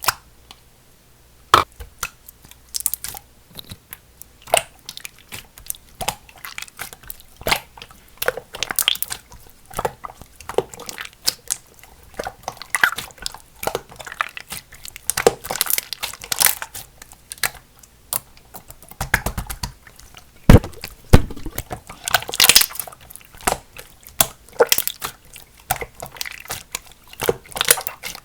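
Clear slime being squished, folded and pressed by hand, giving off irregular sticky crackles and pops of trapped air bubbles, with a few louder snaps about twenty seconds in.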